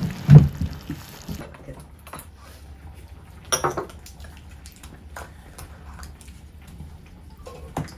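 Tableware clinking during a meal: dishes and utensils knocking lightly now and then, with a louder clink about three and a half seconds in. A brief low sound just after the start is the loudest moment.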